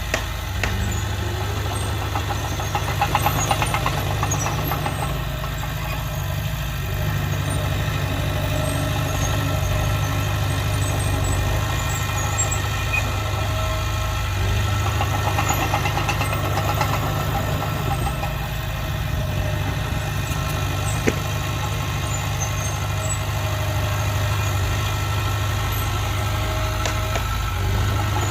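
Diesel engine of heavy earthmoving equipment running steadily with a low rumble, working harder twice, about three seconds in and again around fifteen seconds in.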